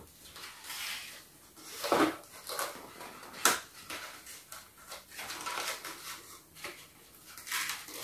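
Hands handling a toy box and its packaging: scattered rustles, scrapes and light knocks, the sharpest about two and three and a half seconds in, as a small flocked figure is freed from the box.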